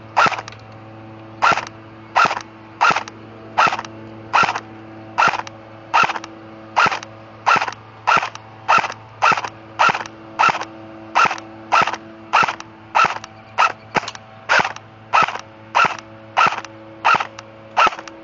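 Airsoft M4 rifle firing about two dozen single shots in a steady rhythm, roughly one every two-thirds of a second, starting about a second and a half in.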